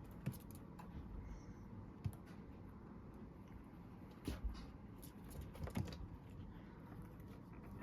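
Guinea pig making a few faint, short, sharp clicks and snuffs at irregular intervals.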